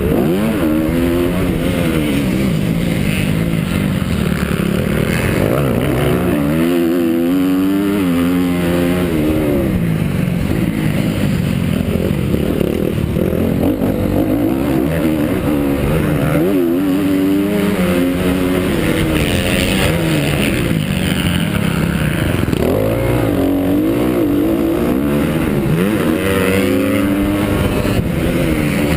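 Honda CRF250 four-stroke single-cylinder motocross engine ridden hard, its pitch climbing and dropping again and again as the rider works the throttle and gears.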